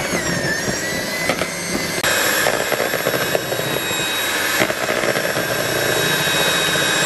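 Electric hand mixer running, its beaters churning mashed purple sweet potato into whipped egg-and-sugar batter. It gives a steady motor whine that steps up louder about two seconds in.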